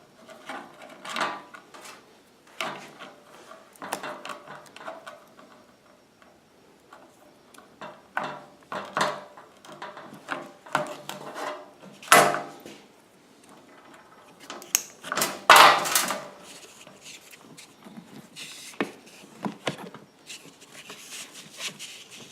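Hands handling an electrical cord and plastic zip ties: intermittent rustling, clicks and scrapes, with a few louder, sharper rasps around the middle.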